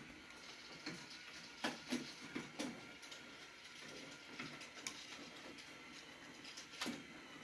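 Battery-powered smart curtain motors driving the curtains closed along the rail: a faint steady motor whine with irregular clicks from the curtain hooks sliding along the rail, the sharpest click just before the end.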